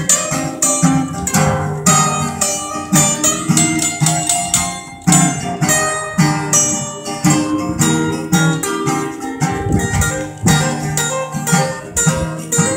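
Two acoustic guitars played together, strummed and plucked in a jam.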